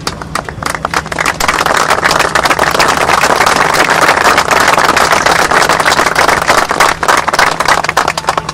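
Audience applauding, a dense patter of many hands clapping that swells over the first couple of seconds, holds, and eases off near the end.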